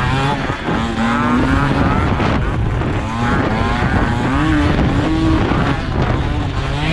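Small two-stroke scooter and moped engines revving, several at once. Their pitch repeatedly climbs and drops as the riders work the throttle.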